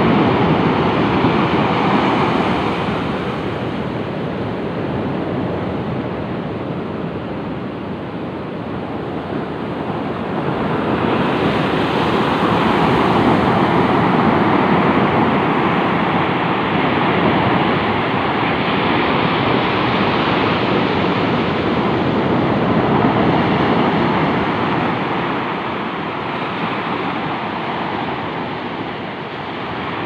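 Surf breaking and washing up a sandy beach, a steady rush of water that swells and eases: loud at first, dropping back, then building again about eleven seconds in before slackening near the end.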